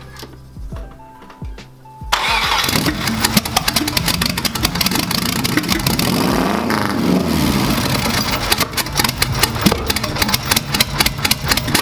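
Twin-turbo Subaru Legacy flat-four engine on a test start: it starts up about two seconds in and runs unevenly, with a lot of irregular crackle and one rev up and down midway. It is running on the stock fuel system, and the builders doubt it is getting enough fuel.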